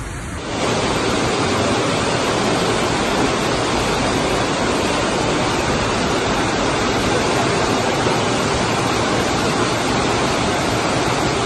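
Floodwater rushing through a flooded street, a loud, steady, dense hiss of water that starts abruptly about half a second in.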